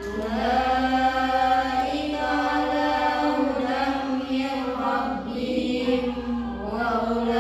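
A woman reciting the Qur'an aloud in a melodic chant, holding long notes that slowly rise and fall.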